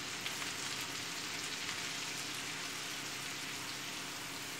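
Hot water poured in a thin stream into a pan of toasted noodles in hot butter and olive oil, hissing and sizzling steadily as it hits the hot fat.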